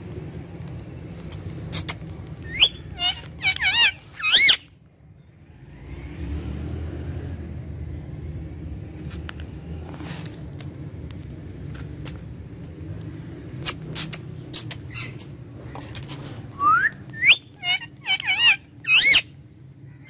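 Indian ringneck parakeet calling in two short runs of loud, wavering, pitched calls, a few seconds in and again near the end, over a steady low rumble with a few scattered sharp clicks.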